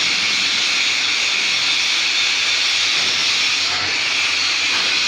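Welding arc on a pipe hissing steadily.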